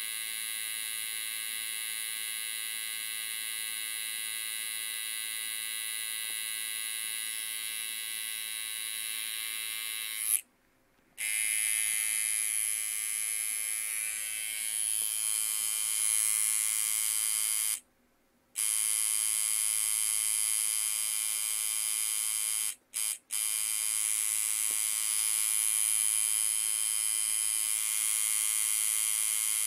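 Steady high-pitched electrical buzz with many overtones from a circuit driven by a pulse-width-modulation controller. It cuts out and restarts about ten seconds in, again around eighteen seconds, and twice in quick succession near twenty-three seconds.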